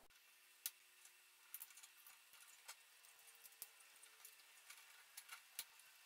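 Faint, scattered clicks and ticks of 3D-printed plastic cable-chain links being handled and snapped together.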